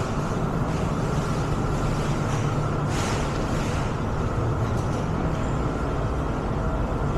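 A steady low engine rumble, with a brief hiss about three seconds in.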